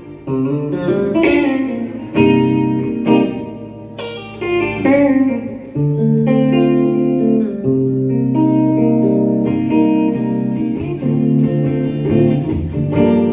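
Solo electric guitar playing the instrumental intro of a song: a run of struck chords, then notes left to ring and sustain.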